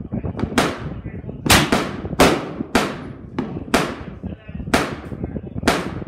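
Gunfire at a shooting range: a run of about nine sharp shots, half a second to a second apart, each followed by a short echo. The shots come too fast for the one single-action revolver, so several guns are firing.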